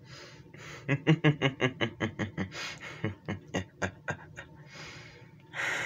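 A man's voice making quick, breathy panting grunts, several a second for about three seconds, then a few longer breaths and a loud hard exhale near the end: mouth-made effects of someone struggling.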